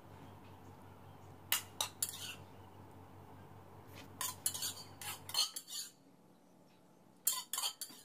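Ladle clinking against a bowl and wok as thick gravy is spooned over noodles: a few short clinks in small clusters. A faint low hum underneath cuts off about five seconds in.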